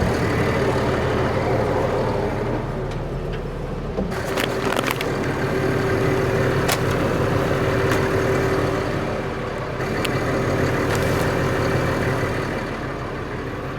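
Diesel engine idling steadily, with a few sharp knocks and clanks over it.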